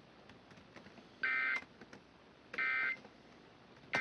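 Emergency Alert System end-of-message (EOM) signal: three short, identical bursts of buzzy two-tone SAME digital data, about 1.3 s apart, marking the end of the alert.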